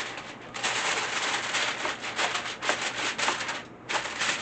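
Aluminium foil crinkling and rustling as it is pulled and pressed down over a casserole dish, in crackly bursts with a short lull near the end.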